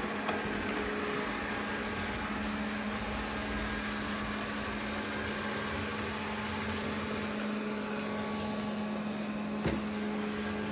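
Redmond robot vacuum cleaner running, a steady motor hum and whir with a constant tone, and one knock near the end.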